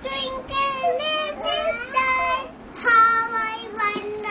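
A little girl chanting a rhyme in a high sing-song voice, in short phrases with several held notes.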